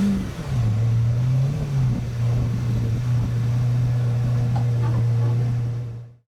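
Car engine running: a strong drone that drops in pitch in the first half second and then holds steady, over a constant rush of noise. It cuts off suddenly near the end.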